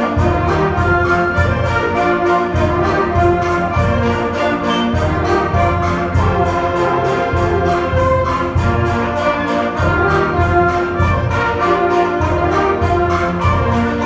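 Live student band with violins, flutes and clarinets playing a piece under a conductor, continuous sustained chords over a low bass line.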